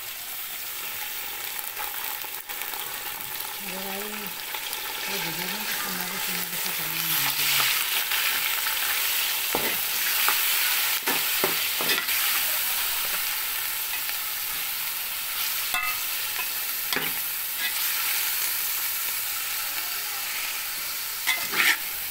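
Minced meat sizzling in hot oil with browned onions in a steel pot, the sizzle growing louder over the first several seconds. A metal slotted spoon stirring it scrapes and clinks against the pot every so often.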